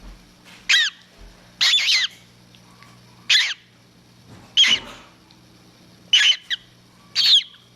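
Newly hatching gull chick peeping while still working its way out of the egg: six short, high calls, each bending in pitch, about one a second.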